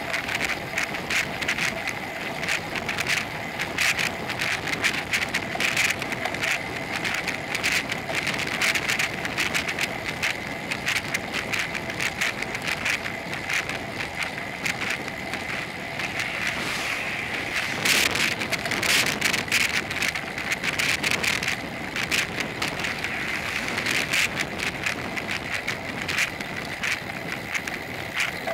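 Bicycle rolling along an asphalt road, heard through a bike-mounted action camera: a dense, steady crackling rattle from road vibration, with wind noise on the microphone.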